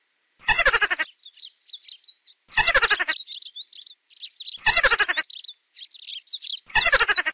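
Mouse squeaks in a repeating pattern: a louder burst of rapid squeaks about every two seconds, with thinner high chirps in between.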